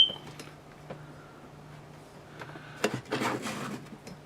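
A single short, high electronic chirp right at the start, typical of a smoke alarm's low-battery warning. A few seconds in, clicks and rustling come from handling tools and the opened battery pack, over a steady low hum.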